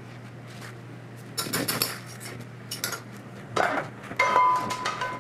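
Metal pans and utensils clattering in several short bursts, the last one ringing on. A steady low hum runs underneath.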